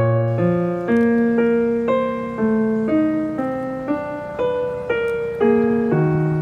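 Background piano music: a gentle melody of single notes and chords, struck about twice a second and fading between strikes.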